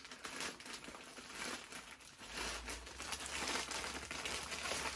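Plastic poly mailer bag crinkling and rustling as it is handled and opened. It is a continuous irregular crackle that gets a little louder in the middle.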